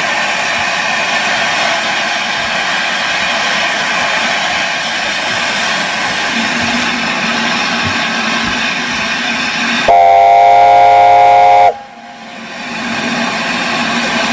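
A steady rushing noise, then about ten seconds in one loud blast of the LNER A4 locomotive's chime steam whistle, several tones sounding together for almost two seconds before cutting off sharply.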